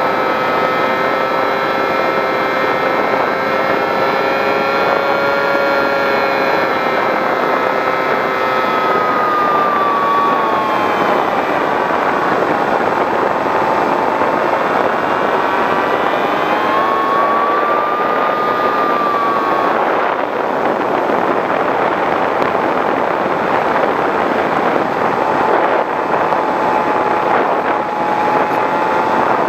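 Brushless electric motor and propeller of a Skywalker FPV plane, heard from its onboard camera: a steady whine over rushing air. The pitch dips and rises about halfway through, then drops and holds lower for the last third.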